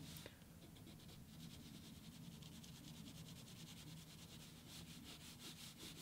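Faint scratchy rubbing of a China marker (wax grease pencil) shading on paper, in quick back-and-forth strokes, several a second, growing more distinct in the second half. A low steady hum sits underneath.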